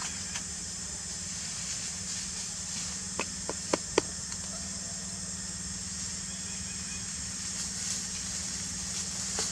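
Outdoor forest ambience: a steady high hiss over a low steady hum, with four sharp clicks in quick succession about three to four seconds in.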